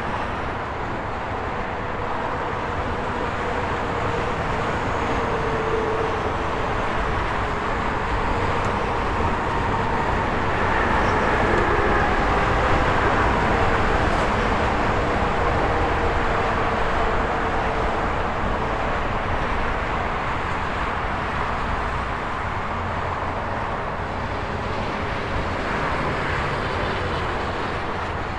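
Highway traffic: a steady wash of tyre and engine noise from passing trucks and cars, swelling to its loudest around the middle as vehicles pass close, then easing off.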